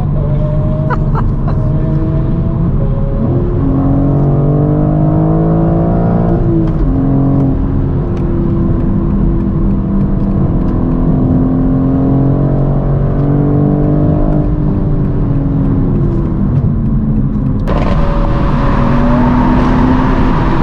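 BMW M4 G82's twin-turbo inline-six engine running on the move, its note climbing and then dropping about six or seven seconds in, then holding steady. A louder rushing hiss comes in suddenly near the end.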